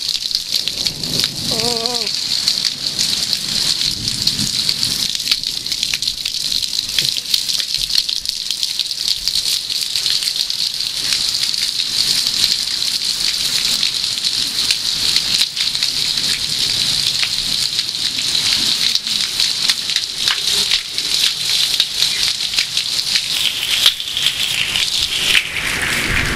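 Heavy rain pouring down steadily onto waterlogged ground, a dense hiss of splashing drops full of fine pattering ticks. Near the end the hiss turns lower and duller.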